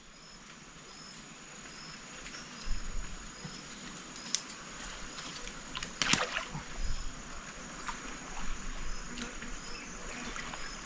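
Shallow river water sloshing and splashing around someone wading, with a few sharper splashes. A faint, short, high chirp repeats about twice a second behind it.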